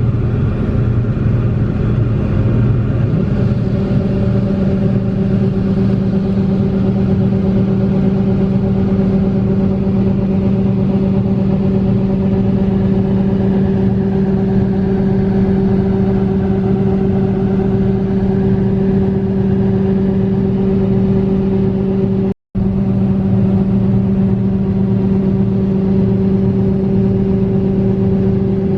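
Large farm machine's engine running at a steady speed with a constant drone; the sound cuts out for an instant near the end.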